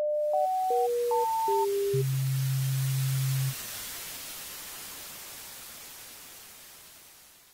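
Electronic channel-intro sound effect: five quick beeps at jumping pitches, then a low steady tone held for about a second and a half, all over a hiss of static. After the low tone stops, the hiss fades slowly away.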